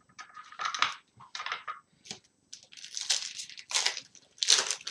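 Foil trading-card pack wrapper crinkling and tearing by hand in a series of short crackly bursts as a pack of O-Pee-Chee Platinum hockey cards is opened.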